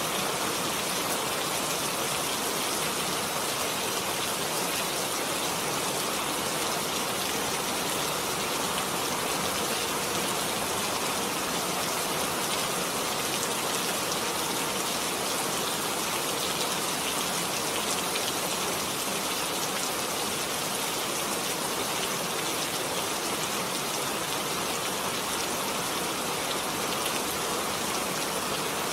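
Heavy rain falling steadily, a dense, even hiss of drops with no change in strength.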